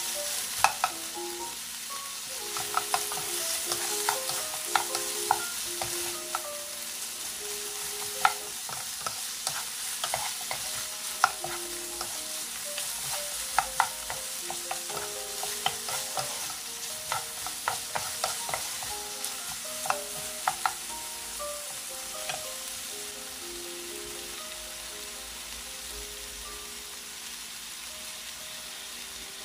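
Pork strips and sliced onion sizzling in a nonstick frying pan as they are stir-fried, with sharp clicks and scrapes of a wooden and a silicone spatula against the pan. The sizzle eases off slightly near the end.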